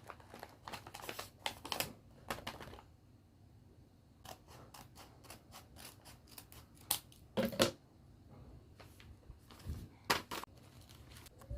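Paper and packaging being handled: irregular crinkling and rustling, with a few louder crackles near the middle and toward the end.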